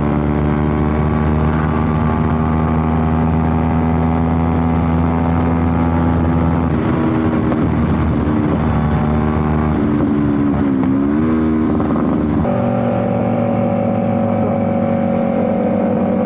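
Motorcycle engine running at a steady cruising speed. Between about seven and twelve seconds in the engine note shifts and wavers, dipping briefly, then settles at a new steady pitch.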